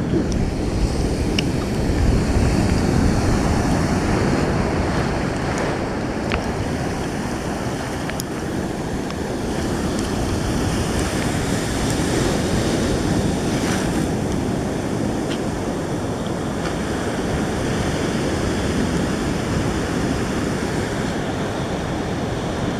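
Seawater washing steadily, with wind rumbling on the microphone.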